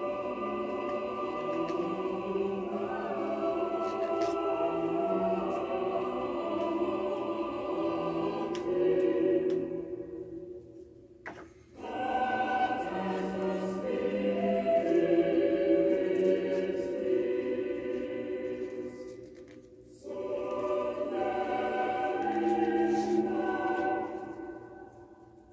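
Background music: a choir singing in long phrases, broken by two short pauses and fading out near the end.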